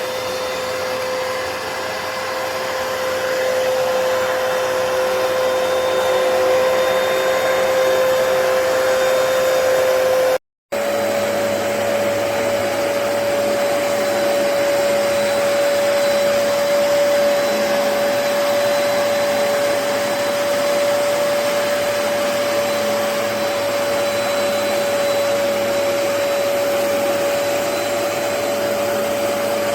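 Hoover PowerDash Pet carpet cleaner's motor running steadily with a constant whine. About ten seconds in it cuts out for an instant, and the whine comes back slightly higher.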